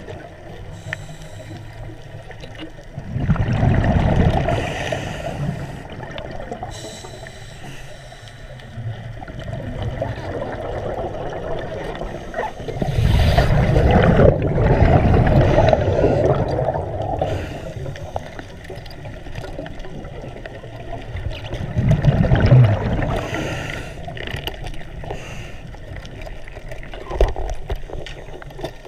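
Scuba regulator underwater: three bubbling exhalations about nine seconds apart, with a quieter low hiss between the breaths.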